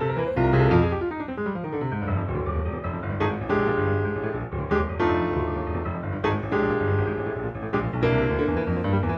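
Background piano music: a descending run of notes in the first two seconds, then sustained chords repeating in a steady pattern.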